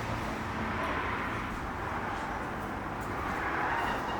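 Steady rumble and hiss of a car on the move, road and running noise without any distinct engine note.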